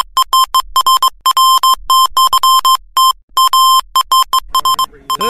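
Electronic beep sound effect: a single high, steady synthesized tone switched on and off in a rapid run of short and longer pulses of irregular length, like Morse code.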